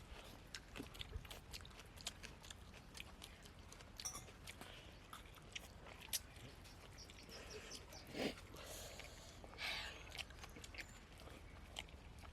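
Faint chewing and mouth clicks of people eating poori with mutton curry, with two slightly louder noises about two-thirds of the way through.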